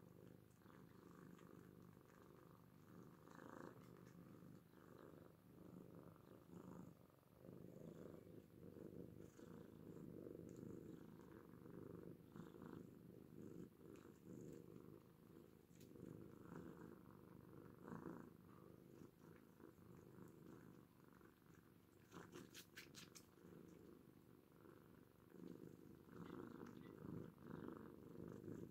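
Oriental cats purring softly and continuously while curled up together. A brief run of faint clicks comes about three-quarters of the way through.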